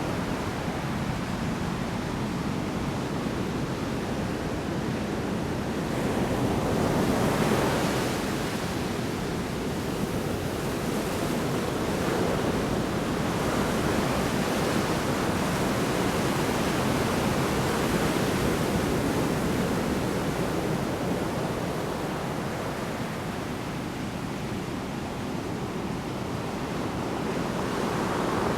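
Large storm waves breaking on the shore in a continuous rush of surf, swelling and easing as each wave crashes and washes back.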